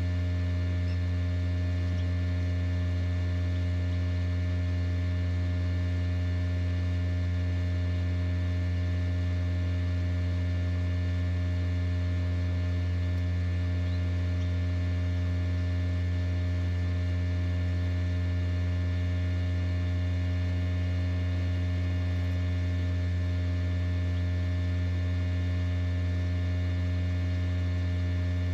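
Steady low electrical hum with a stack of evenly spaced overtones, unchanging throughout.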